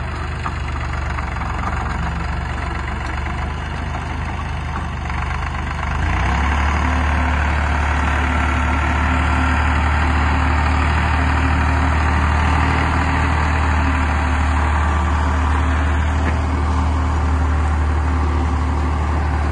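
Tractor diesel engine running with a steady low hum. About six seconds in it gets louder and holds there as the tractor pulls the seed drill through the straw stubble.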